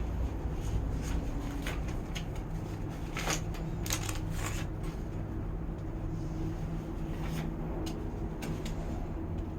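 Low rumble and hum of a moving vehicle, with scattered light clicks and rattles, most of them about three to five seconds in.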